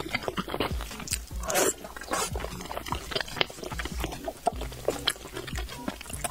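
Wet, sticky tearing and squelching of a soft braised pork trotter being pulled apart by a gloved hand, with many small clicks, then biting and chewing near the end. The meat is tender enough to slip off the bone.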